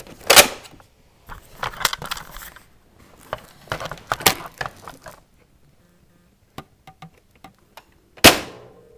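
Nerf Longshot blaster being worked to reload: loud sharp plastic clacks of the bolt being pulled back and pushed home, a few seconds apart, with light clicking near the end and one last loud snap.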